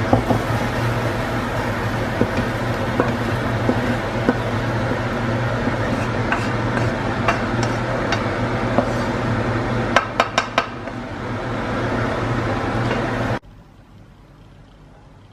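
Cooking sounds of utensils clinking and scraping against a pan over a steady hum, with four quick taps about ten seconds in. The sound cuts off abruptly near the end, leaving a faint background.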